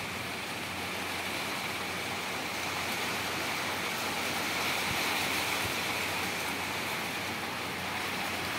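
Steady rain falling on tiled paving, an even hiss of water with no single drops standing out.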